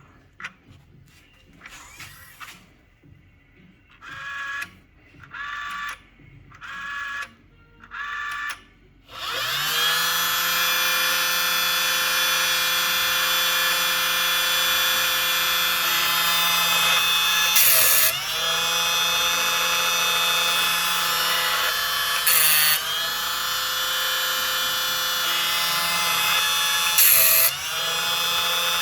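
Timber Tuff automatic chainsaw sharpener starting up: five short pitched pulses about a second apart, then about nine seconds in its motor starts and runs with a steady whine. Three times, four to five seconds apart, the whine dips briefly with a harsh hiss as the grinding wheel works through the chain's cutter teeth.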